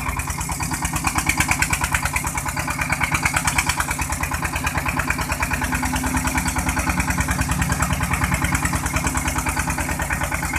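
A fishing boat's engine running steadily, with a fast, even pulse.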